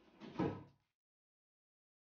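A short scraping rustle that builds into a dull knock about half a second in, all over within the first second.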